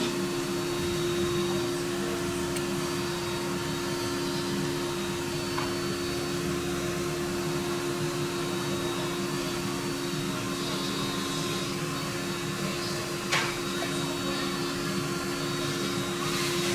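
Steady machine hum with two held low tones, and a single sharp click about thirteen seconds in.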